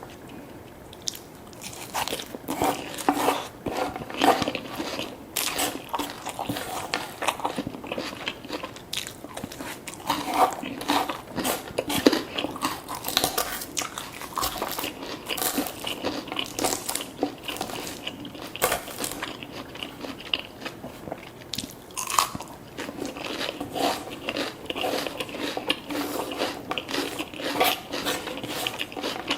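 Close-miked eating: a person biting and chewing crunchy food, with many quick, irregular crunches and chewing sounds.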